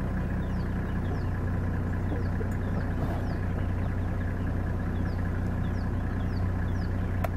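Vehicle engine idling steadily, with a short, high falling chirp repeating about twice a second over the hum.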